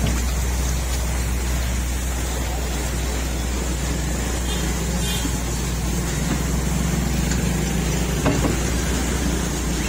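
A steady low engine drone, even and unbroken, with a single short click about eight seconds in.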